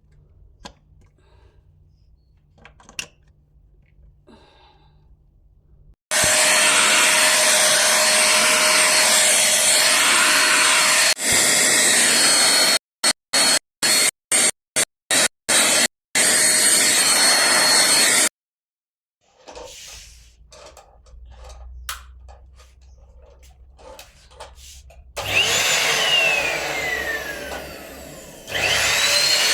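A vacuum cleaner running in long stretches: a steady rushing noise with a whine, broken by short gaps. Near the end its motor pitch falls and then rises again as it runs up.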